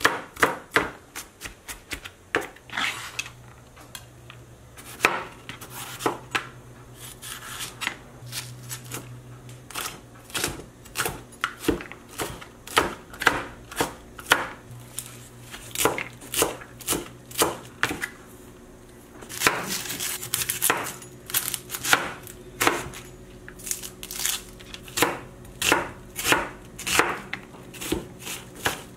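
Chef's knife chopping garlic, jalapeño and onion on a plastic cutting board: quick sharp knocks of the blade on the board, several a second, with a short pause a little past halfway.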